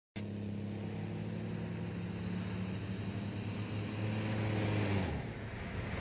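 Road vehicles driving by: a charter bus and a station wagon, a steady engine hum over tyre and road noise. The hum drops away about five seconds in.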